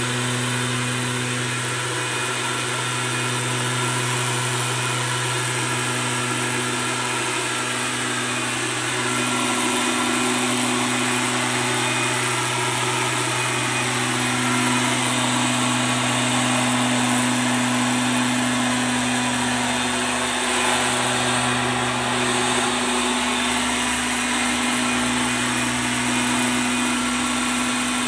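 STIHL backpack leaf blower's engine running steadily at working speed, with the steady rush of air from the blower tube.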